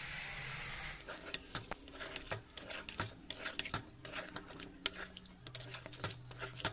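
Hot water poured from a bowl into a metal kadhai of frying chicken and spices, a brief hiss for about the first second. Then a spatula stirring and scraping against the kadhai in a quick, uneven run of clicks and scrapes.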